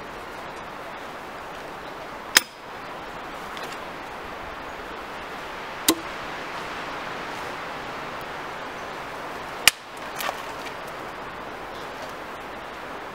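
Four sharp knocks, metal on wood, from a hand axe striking spruce sprigs and logs while the sprigs are laid into a log bed. The first knock rings briefly. A steady rustling hiss of handled spruce branches runs between the knocks.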